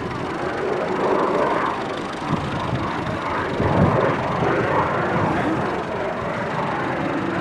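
Case 1494 tractor's diesel engine running as the tractor drives slowly across grass, with a low thump about four seconds in.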